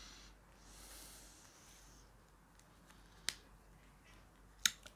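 Faint rustling and small sharp clicks of a plastic action figure and its backpack accessory being handled: one click about three seconds in and a quick double click near the end.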